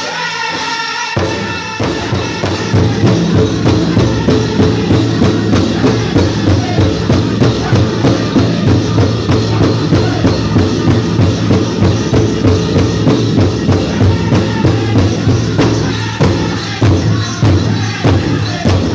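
Powwow drum group singing a chicken dance song with the big drum beaten steadily at about two to three beats a second. High voices carry alone for about the first second before the drum and the full group come in loud.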